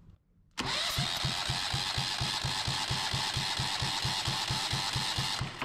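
Yanmar 1GM single-cylinder diesel cranked on its electric starter with the injector removed for a compression test: about five seconds of starter whine over an even beat of roughly six compression pulses a second, starting and stopping abruptly. The engine does not fire.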